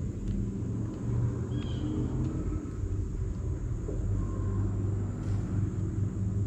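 A steady low rumble with no clear rise or fall.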